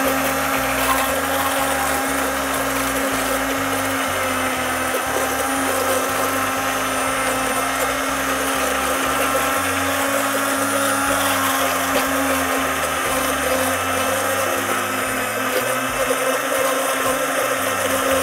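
Hand-held immersion blender running steadily in a tall plastic jug, puréeing a pepper sauce into a smooth cream.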